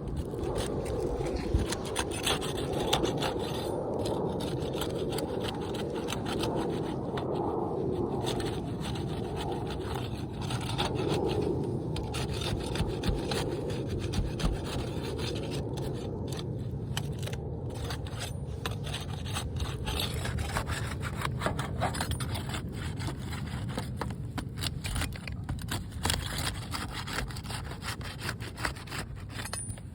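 Continuous scraping and rubbing on roof shingles, with many small knocks and clicks.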